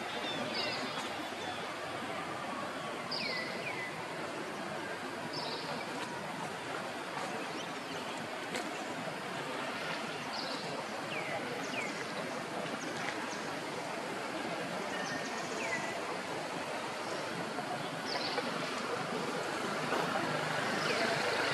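Outdoor ambience: a steady hiss with short, high chirps, each falling in pitch, repeating every two to three seconds.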